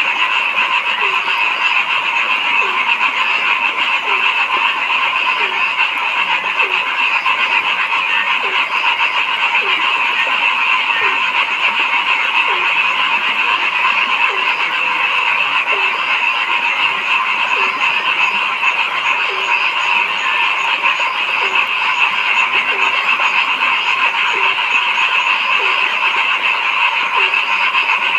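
Dense chorus of frogs calling together in a steady, high trilling wash, with one frog's short, low, upward-sliding croak repeating about once a second.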